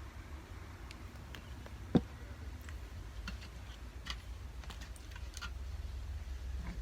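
Homemade glue slime being kneaded by hand in a bowl, making small sticky clicks and squelches, with one sharper click about two seconds in, over a steady low rumble.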